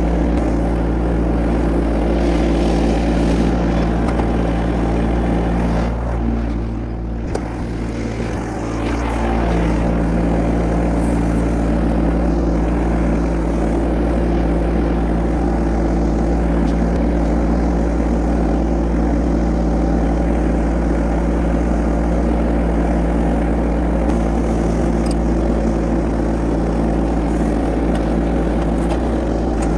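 An engine running steadily at an even speed throughout, dipping briefly in level about six seconds in.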